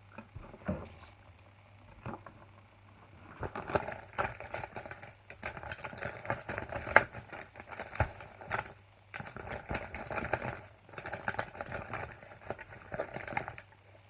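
Hands rummaging through a fabric makeup bag: makeup items clicking, clacking and rustling against each other. A few scattered clicks at first, then busy rummaging with short pauses from a few seconds in.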